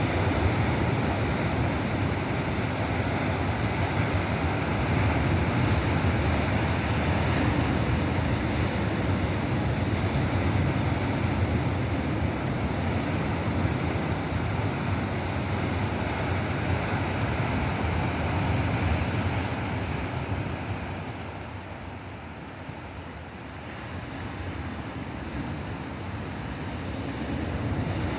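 Ocean surf: waves breaking and washing up as a continuous rush, easing off about two-thirds of the way through and building again near the end.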